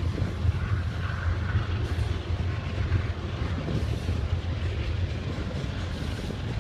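Steady low rumble of a BNSF double-stack intermodal freight train rolling across an elevated flyover.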